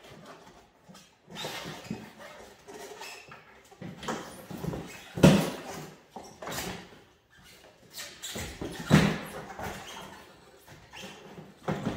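Irregular clunks, knocks and scraping of a snowmobile rear suspension skid as it is slid forward and worked out of the inside of its rubber track by hand. The loudest knocks come about five and nine seconds in.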